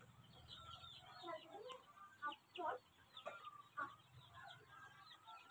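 A flock of three-week-old Sonali chicks peeping, many short, falling calls overlapping at a low level, with a few louder ones in the middle.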